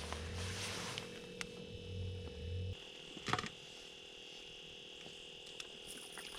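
A small spinning reel being cranked to bring in a hooked fish: a faint, uneven low whir with scattered light clicks. The whir stops about three seconds in, followed by a sharper click.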